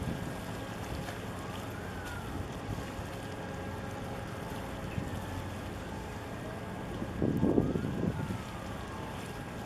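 Wind buffeting the microphone over a steady low rumble, with a stronger gust about seven and a half seconds in.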